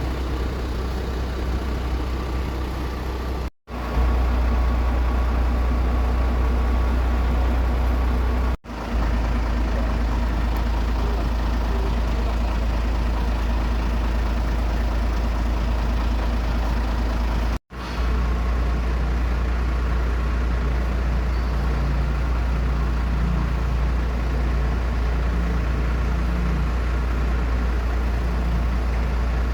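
Steady drone of an aircraft engine running at an airfield, with a heavy low rumble. The sound cuts out briefly three times and resumes at once.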